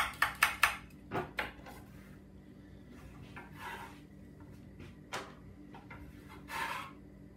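Vegetable peeler scraping down a raw carrot in quick strokes, about three a second, which stop about a second in. A few knocks and two brief scrapes on the wooden cutting board follow as the peeler is put down and a knife taken up.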